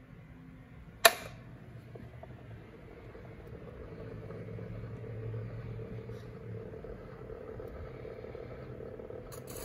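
Freshly repaired spring-wound motor of a 1912 Victor XVI phonograph running with the turntable spinning, a quiet steady low whir, with one sharp click about a second in. Near the end the needle is set down on the disc and surface noise begins.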